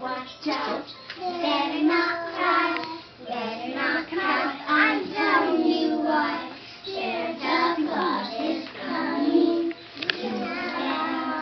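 A small group of young children singing a Christmas song together, in unison with held, wavering notes.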